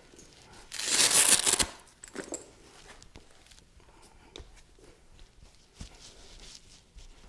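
A padded resistance-band ankle strap's hook-and-loop fastener ripped open, one loud tearing rip lasting about a second, near the start. After it come a few faint clicks, knocks and rustles.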